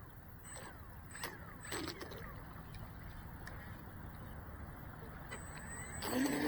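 Electric motor of an RC boat running out on the water, heard as a soft hiss with a few faint clicks; near the end the motor whine rises as it is throttled up.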